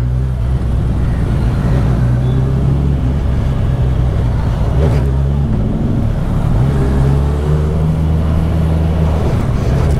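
Kawasaki Z1000SX (Ninja 1000) inline-four engine running steadily at low speed under the rider, with the engine note briefly changing about halfway through before settling back.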